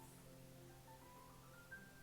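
Soft background music of sustained, mallet-like notes, with a short line of notes rising in steps near the end.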